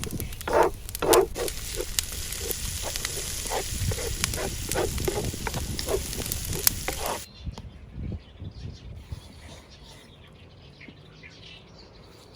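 Food sizzling and crackling as it fries in hot oil in a pan. The sizzling cuts off abruptly about seven seconds in, leaving a much quieter background with a few faint knocks.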